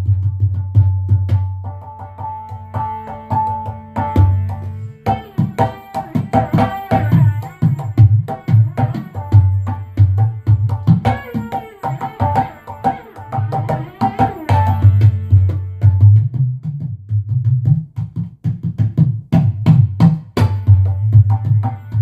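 Korg Wavedrum electronic hand drum played rhythmically, with a rapid run of strikes over a deep, booming bass tone and ringing, pitched overtones, much like a tabla.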